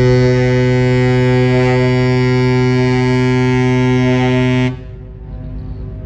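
The horn of the Pelni passenger ship KM Kelimutu sounds one long, steady, deep blast as the ship leaves port, cutting off sharply about four and a half seconds in. A low rumble remains after it stops.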